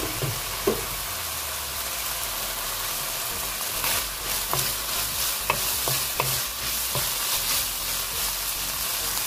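Sliced meat with dried mushrooms and dried shrimp sizzling steadily in a nonstick frying pan, with a couple of clicks just after the start. From about four seconds in, a wooden spatula stirs it, scraping with light knocks against the pan.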